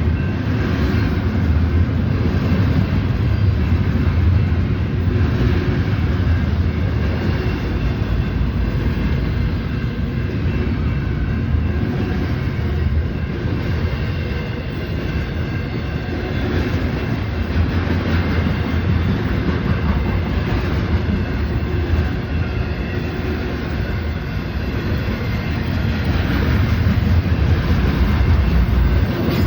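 Union Pacific intermodal freight train rolling past, a steady, continuous noise of its cars' wheels on the rails, swelling slightly near the end.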